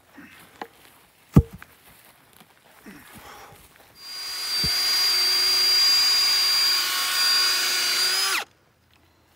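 Cordless drill boring into a log, running steadily at one speed for about four and a half seconds and then stopping abruptly. Before it, a few dull knocks.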